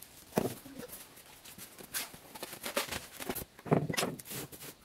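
Unpacking noises: scattered knocks, scrapes and rustles as cardboard and styrofoam packing are handled and parts are set down on a wooden table.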